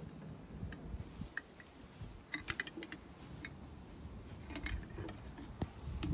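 Scattered light metallic clicks and clinks from a steel full-mouth dental speculum being handled in a horse's mouth, coming in a few short clusters.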